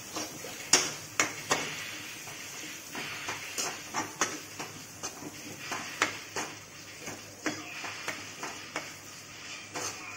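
A metal spoon stirring boiled corn kernels in masala in a metal kadai: irregular clinks and scrapes of the spoon against the pan, a few each second, over a steady frying hiss.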